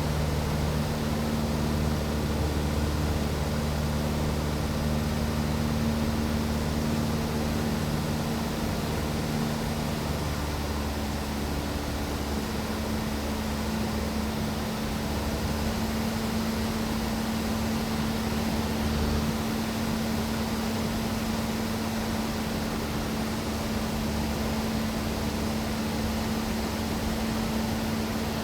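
Aircraft in steady constant flight: an even drone of engine and airflow noise with a held low hum underneath.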